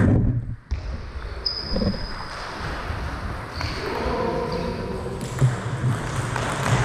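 Table tennis ball bouncing a few times as a point is readied, with a few short high squeaks, in an echoing sports hall.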